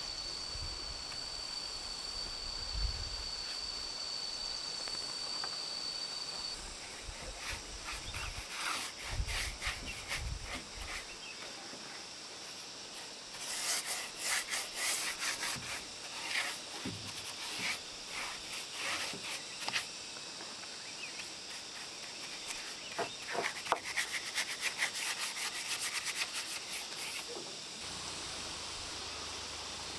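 Repeated rubbing strokes on wooden boards, coming in runs of a few seconds with pauses between. A steady high-pitched tone runs under the first six seconds or so.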